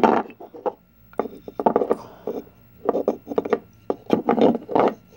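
Wooden burr puzzle pieces knocking and sliding against each other as they are handled and tried in place, an irregular run of clacks and scrapes.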